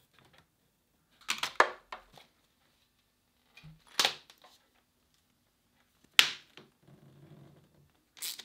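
Handling noise from fitting a reinforced air hose by hand: a few sharp clicks and knocks spaced a couple of seconds apart, then a short rustle as the hose is pressed against the wall.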